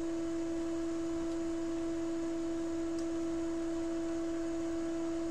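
A steady electronic tone: one unchanging mid-pitched note with a fainter note an octave above it, and a faint tick about three seconds in.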